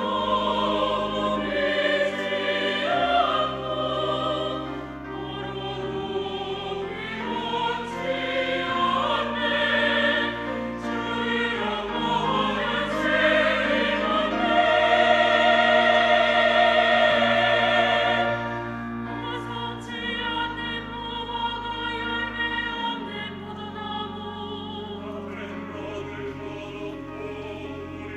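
Church choir singing an anthem with instrumental accompaniment. The voices swell to their loudest near the middle on a long held chord, then ease off softer towards the end.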